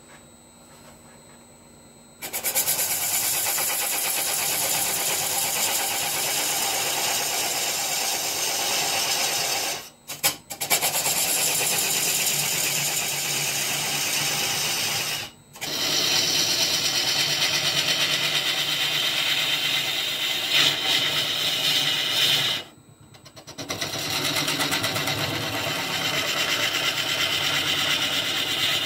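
Faint hum of a wood lathe turning, then from about two seconds in a turning tool cutting into spinning monkey puzzle wood: a loud, steady cutting hiss of shavings coming off. It breaks off briefly three times as the tool is lifted.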